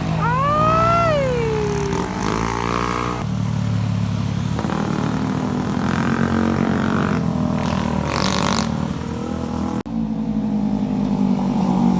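Motorcycle engine running steadily, with its pitch shifting a little as it revs. A high drawn-out call that rises and then falls sounds over it in the first two seconds.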